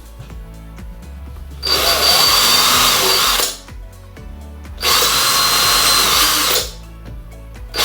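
Power drill with a 2 mm bit boring into a block of firewood, run in two bursts of about two seconds each.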